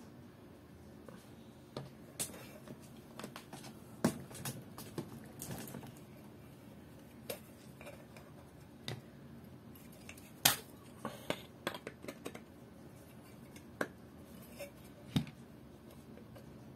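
Scattered sharp clicks, taps and short rustles of small hard objects being handled, at irregular intervals, the loudest click a little past halfway.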